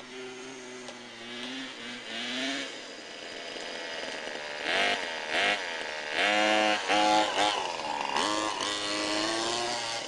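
Small two-stroke engine of a 1/5-scale Baja RC buggy running and revving up and down. It gets louder as the buggy nears, with a series of sharp rev-ups from about five to seven and a half seconds in, then holds a high steady speed.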